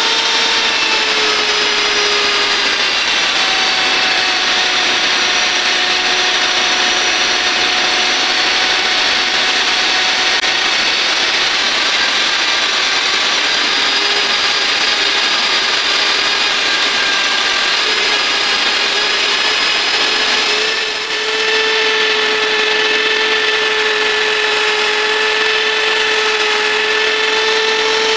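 Electric die grinder with a pink mounted stone whining steadily as it grinds the surface of a steel arbor turning in the lathe, with a continuous grinding hiss. The pitch shifts briefly about two-thirds of the way through.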